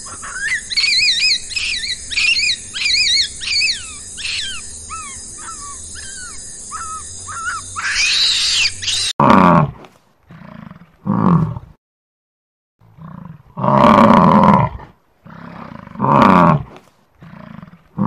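A bird calling with rapid, repeated arched whistles for about nine seconds; then, after an abrupt cut, a large animal roaring: five loud, deep roars of about a second each, with pauses between.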